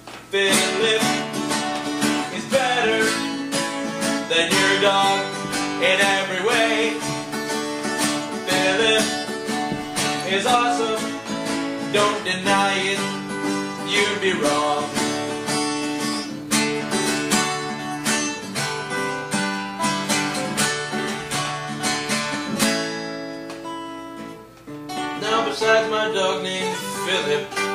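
Two acoustic guitars strumming and picking a song, with a voice singing along. The playing drops off about twenty-three seconds in, then picks up strongly again.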